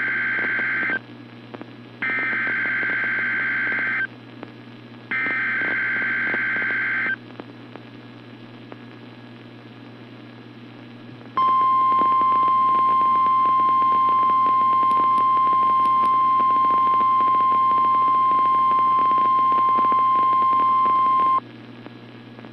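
NOAA Weather Radio emergency alert: the SAME digital header's shrill data bursts, one ending about a second in and two more of about two seconds each, a second apart. After a four-second gap comes the steady single-pitched Weather Radio warning alarm tone for about ten seconds, over constant radio hum and hiss.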